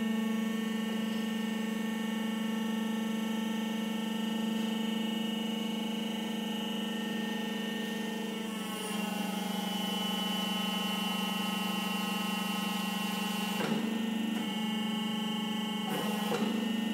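Rotek Pile Turner 900's hydraulic pump running with a steady hum, its pitch dropping slightly about halfway through as the machine moves its clamp and platform. Two short clunks come near the end.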